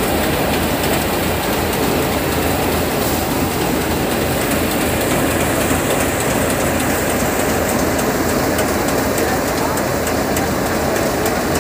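Tractor-driven paddy threshing machine running steadily under load, its drum and engine making a loud, constant mechanical rumble.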